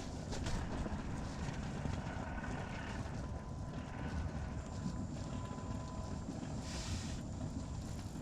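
Strong wind buffeting the microphone: a steady low rumble, with a brief louder hiss about seven seconds in.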